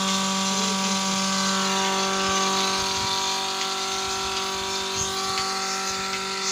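Milking machine's 0.5 hp electric motor and oil-lubricated vacuum pump running, a constant hum over a steady hiss.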